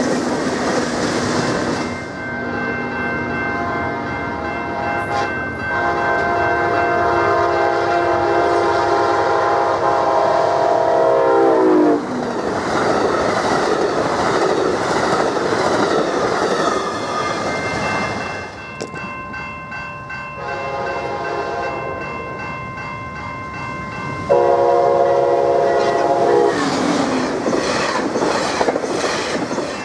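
Passenger trains passing at speed, a Pacific Surfliner and then a Coaster commuter train, with wheels clattering over the rails. Two long multi-note horn blasts sound, one starting about six seconds in and one about two-thirds of the way through, each dropping in pitch as it ends. A crossing bell rings underneath.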